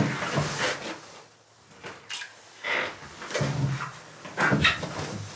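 Irregular knocks, clatters and rustling of fishing gear being handled, several separate bursts a second or so apart.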